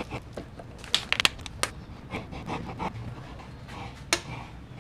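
A plastic bottle being squeezed and let go, crackling, with puffs of air and a few sharp plastic clicks about a second in and near the end. The bottle is a homemade suction pump drawing old clutch fluid out of the reservoir through a hose.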